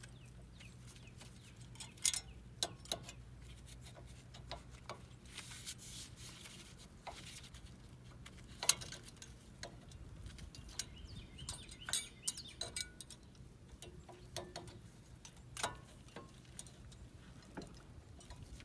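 Scattered sharp metallic clicks and clinks of rear brake pads and their abutment clips being handled and pressed into place on the caliper bracket, a few louder knocks among them.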